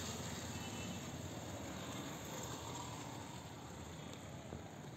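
Faint, steady noise of road traffic.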